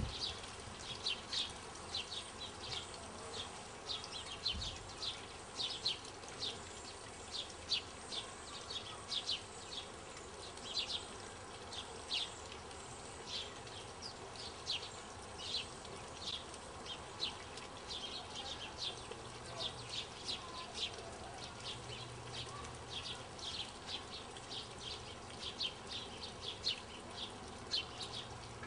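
Outdoor ambience dominated by an uneven series of short, high-pitched chirps, about two or three a second, from a small animal.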